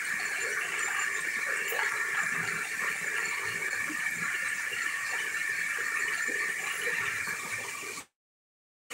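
Heavy summer rain falling through tree foliage, a steady, unbroken hiss of drops on leaves. It cuts off suddenly to dead silence about eight seconds in.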